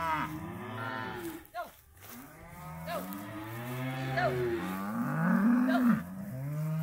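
Several calves bawling: long, overlapping moos one after another, with short breaks about two seconds and six seconds in.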